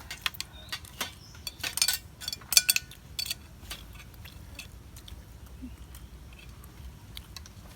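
Spoons clinking and scraping against plates as people eat, with a run of sharp clinks in the first three seconds, then quieter.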